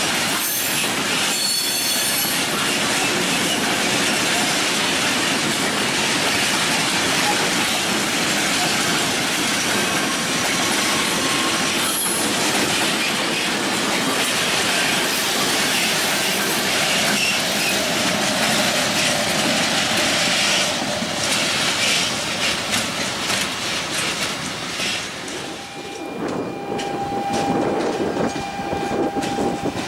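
Freight train of open wagons rolling past at speed, steel wheels clattering over rail joints, with high wheel squeal at times, strongest near the start. Near the end the rolling noise drops and gives way to a Pendolino electric train, with a steady tone.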